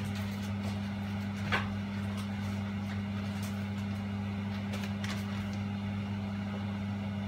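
Steady low hum, with a single faint click about a second and a half in.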